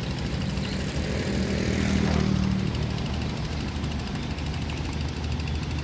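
Steady low engine drone, with a second engine growing louder and sweeping past about two seconds in, then fading.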